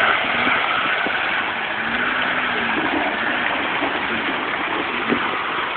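Suzuki Samurai's engine running steadily as the small 4x4 climbs out of a deep mud hole.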